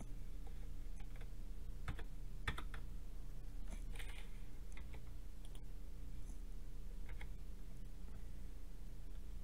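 Scattered clicks of a computer mouse and keyboard keystrokes, coming in small clusters, over a steady low electrical hum.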